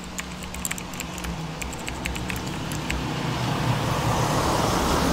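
A small 4x4, a Suzuki Jimny, approaching along a road, its engine and tyre noise growing steadily louder. Scattered small clicks sound over the first three seconds or so.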